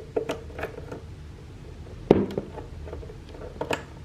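Handling noises from plugging cables into a standing desk's control box: a few light clicks and taps, with one louder knock about two seconds in that rings briefly.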